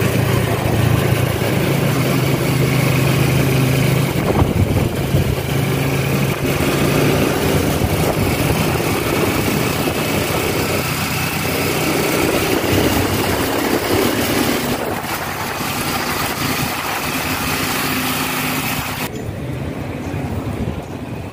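Motorcycle engine of a passenger tricycle (motorcycle with sidecar) running steadily while riding, with road and wind rush; the rushing noise drops away sharply near the end.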